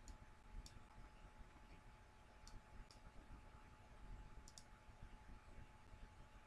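Faint computer mouse clicks, about six, some in quick pairs, over near silence with a faint steady tone.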